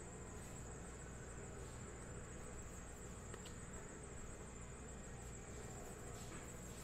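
Quiet room tone: a steady high-pitched whine over a low hum, with a faint tick or two.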